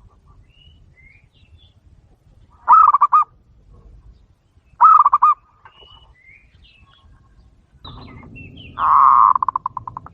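Doves cooing: three loud pulsed coos, the last one longer and ending in a rapid rolling trill that fades away, with faint higher chirps between them.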